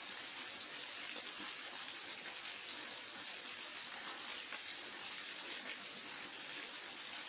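Waterfall: a steady rushing hiss of falling water, even throughout with no changes.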